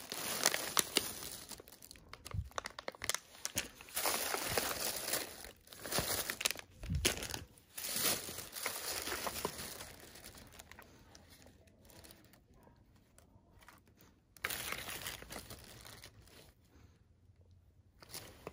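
Thin plastic shopping bags crinkling and rustling as hands rummage through them and pull out packaged items, in irregular bursts that are busiest in the first half.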